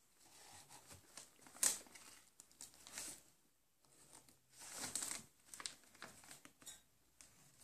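Paper sewing-pattern envelopes rustling as they are flipped through in a box, in irregular bursts with short pauses, the sharpest just under two seconds in.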